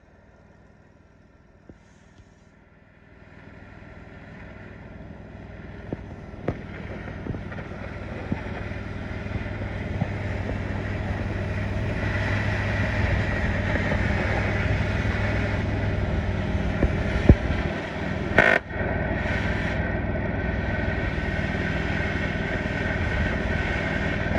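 An engine running, fading in after a few seconds of near silence and growing steadily louder before holding, with a few sharp knocks and clanks.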